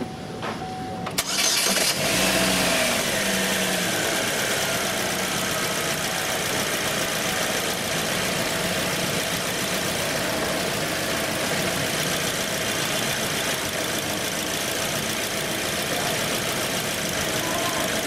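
Car engine cranked and started about a second in, then idling steadily. It runs lean at idle from a vacuum leak at the brake booster.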